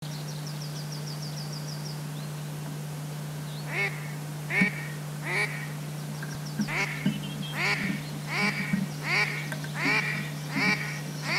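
Duck quacking: a steady series of single quacks, about one every three-quarters of a second, starting about four seconds in. A short high trill sounds in the first two seconds, over a steady low hum.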